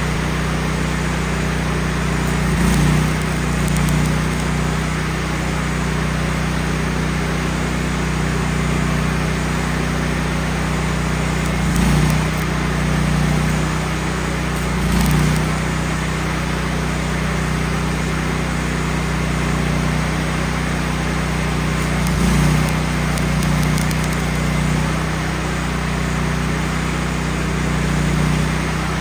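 Gas engine of a Miller Bobcat 250 engine-driven welder running steadily, with a few brief surges in loudness.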